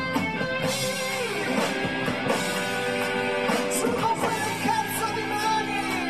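Live pop-rock band playing: electric guitars, bass guitar and drum kit.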